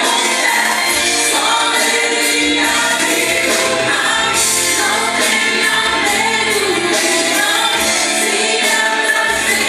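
Live worship music: a congregational or group gospel song, voices singing together over instrumental accompaniment.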